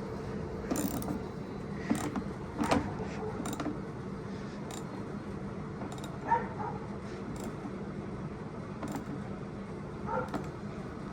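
Irregular metal clicks and clinks of hand tools and bolts as a fender is fastened onto a two-stroke motorbike, with a few sharper knocks in the first three seconds, over a faint steady hum.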